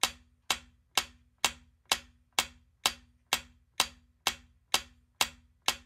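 Countdown timer sound effect ticking evenly, about two sharp ticks a second, each with a brief low ring.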